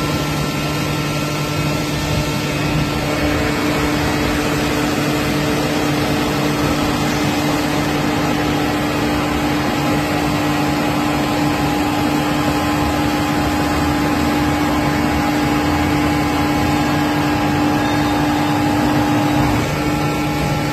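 Metal baler's hydraulic power unit running, a steady machine hum with a few held tones that shift slightly about three seconds in.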